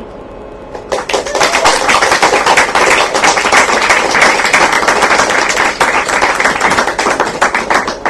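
Audience applauding: many hands clapping fast and densely, starting about a second in and breaking off suddenly near the end.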